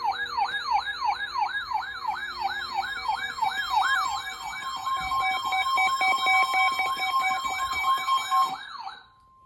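Electronic emergency alert siren sweeping rapidly up and down, about two and a half sweeps a second, with a steady high alert tone joining about four seconds in. The siren cuts off near the end while the steady tone carries on: the attention signal ahead of a new weather warning broadcast.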